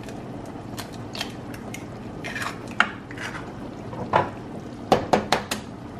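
Eggs being cracked by hand into a steel pot of boiling tomato broth: sharp taps and shell cracks, with a quick cluster of four near the end, over a steady bubbling.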